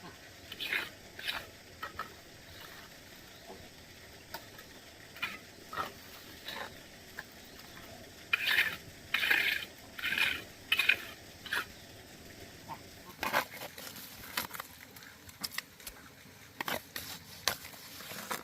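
Scattered light knocks and clatter over a faint steady background, with a run of about five louder scraping or clattering strokes about eight seconds in and more sharp knocks after that.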